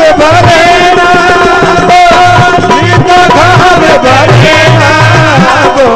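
Devotional bhajan music: an ornamented melody line with wavering turns over a steady hand-drum rhythm, in a pause between sung lines.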